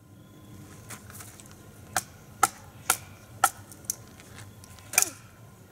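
A wooden stick used as a baton knocking on the spine of a knife blade driven into a piece of firewood, splitting it: about six sharp knocks, roughly two a second, starting about two seconds in.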